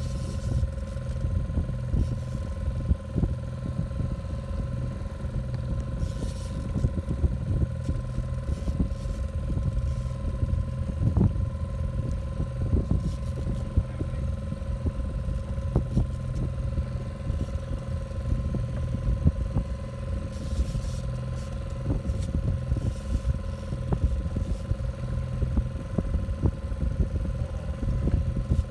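Boat's outboard motor running steadily, a constant engine hum, over a low rumble with many small knocks and crackles.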